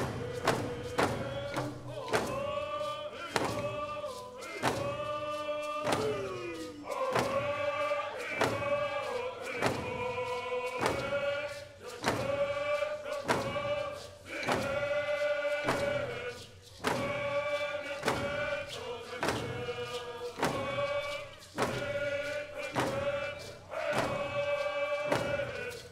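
A group of voices singing a song in unison, holding long notes, over a steady pounding drum beat.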